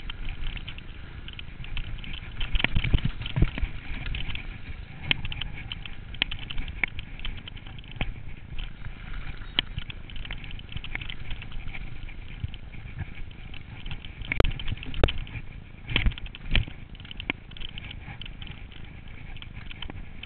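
Yeti 575 mountain bike riding over rough, snow-covered frozen ground, heard through a handlebar-mounted action camera: a constant rattle of tyres, frame and mount over the bumps. There is a cluster of harder knocks about three seconds in, and more heavy thumps about two-thirds of the way through.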